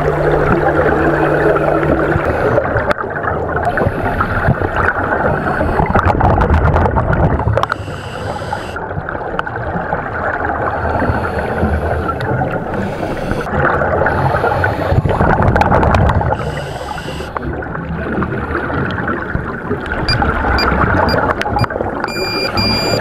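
Underwater noise of a scuba regulator and exhaust bubbles, swelling and easing in breath cycles a few seconds apart. A steady high tone comes in near the end.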